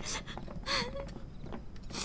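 A woman's short wordless cry of wavering pitch a little before a second in, amid scattered footsteps and small clinks as she is carried off.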